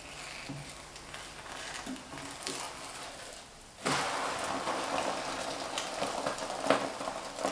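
Egg-topped batter pancake sizzling in oil on an electric baking pan. The sizzle jumps suddenly louder about four seconds in, as the pancake is flipped onto its egg side, with a few short scrapes of the spatula on the pan.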